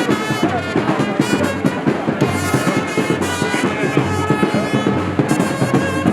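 Instrumental passage of a song, with brass over a steady beat.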